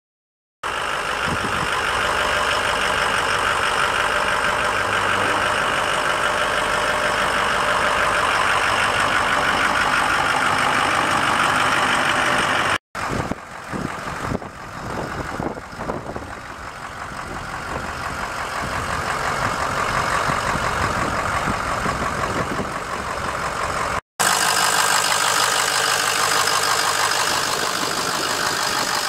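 Ford 6.0L Power Stroke V8 turbo diesel idling steadily. The sound breaks off abruptly twice and is quieter for a stretch in the middle.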